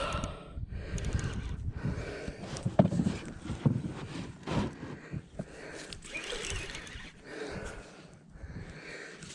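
A man breathing hard and straining in irregular gasps and snorts while fighting a big catfish on rod and reel, over a constant low rumble of handling noise.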